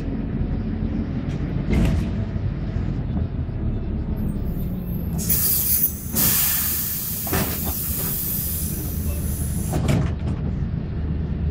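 City bus engine running at low speed, with a loud hiss of released compressed air from the bus's pneumatics starting about five seconds in and lasting about four seconds.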